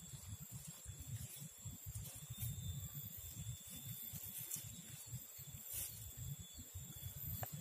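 Riverside ambience: a steady high-pitched insect drone over a low, fluctuating rumble, with a few faint clicks.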